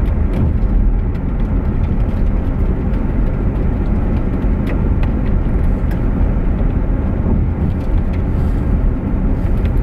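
Steady low rumble of a car driving at road speed, tyre and engine noise heard from inside the cabin, with a few faint light ticks.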